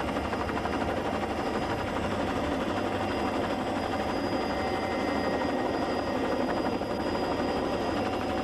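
Steady engine drone with a strong low rumble, unchanged throughout.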